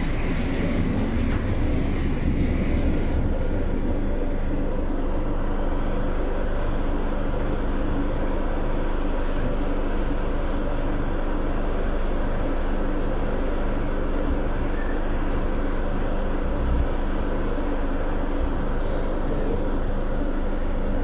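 Renfe series 446 electric commuter train running, heard from inside the carriage: a steady rumble of wheels on the rails under a steady low hum, a little rougher in the first few seconds. There is a single knock about 17 seconds in.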